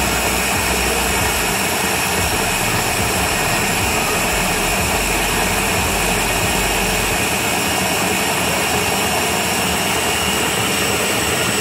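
Countertop blender motor running steadily at speed, puréeing boiled dried red chilies in their cooking liquid.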